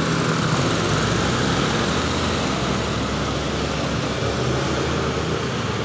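A motor vehicle engine running steadily, with street traffic noise.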